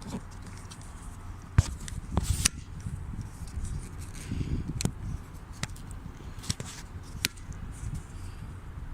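Scattered sharp clicks and knocks of hard parts and tools being handled, over a low background rumble; the loudest click comes about one and a half seconds in, with a short cluster just after and single clicks about once a second later.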